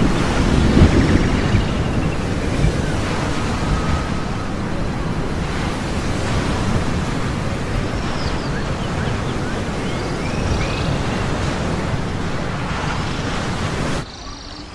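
Steady rushing of ocean surf and wind, with faint high chirps now and then. It cuts off abruptly near the end to a much quieter sound.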